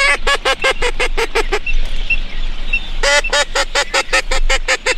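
Hand-blown duck call worked at teal in flight: two fast runs of short, evenly spaced quacks, about eight a second. The first run lasts about a second and a half, the second starts about three seconds in, and a few faint high peeps come in the gap between.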